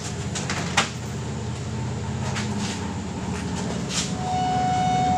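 Sharp metal clanks and knocks as a small-block Chevy engine hung on a chain hoist is pushed between the motor mounts of a dirt-track car. Underneath is a steady low rumble. About four seconds in, a sustained squeal sets in and holds.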